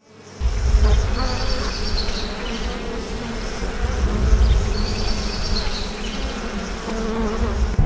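Honeybees buzzing, a steady hum, with two short high chirping phrases, one about a second in and another about five seconds in. The sound cuts off suddenly just before the end.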